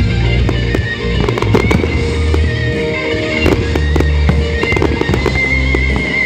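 Fireworks bursting in quick succession, with many sharp bangs and crackles from aerial shells and low bursts. Loud music with held notes plays throughout.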